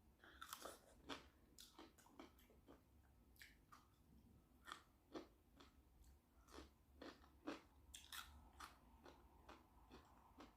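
A person chewing and biting food from a shrimp boil up close to the microphone: a soft, irregular run of short wet mouth clicks, several a second.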